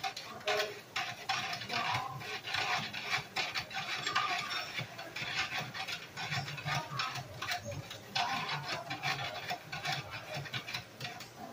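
A long utensil stirring a plastic pitcher of fruit-filled Kool-Aid, clicking and knocking irregularly against the pitcher's sides.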